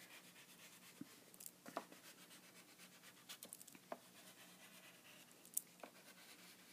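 Faint scratching of a black oil pastel crayon drawn across paper in short scattered strokes, over a low steady hum.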